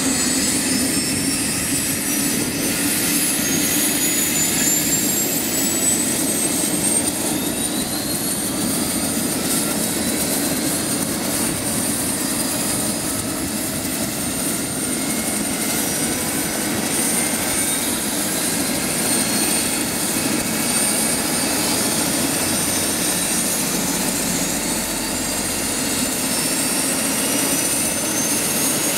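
MBB Bo 105 helicopter's twin turboshaft engines running up on the ground with the main rotor turning. A high turbine whine rises in pitch over the first several seconds and then holds steady, with another rising whine near the end.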